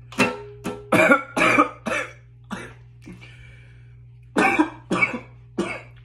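A man coughing in two bouts: six short, harsh coughs in quick succession, a pause, then three more.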